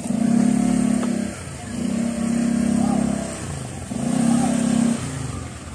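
A motorcycle engine revved in three bursts of about a second each, its pitch staying fairly level.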